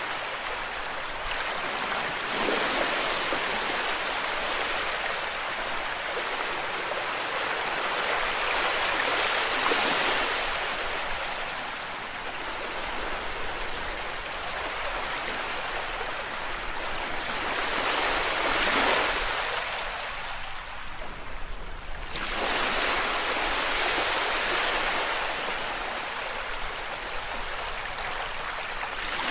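Ocean waves washing onto a shore, a steady hiss of surf that swells and ebbs every several seconds, with an abrupt jump in the sound about three-quarters of the way through.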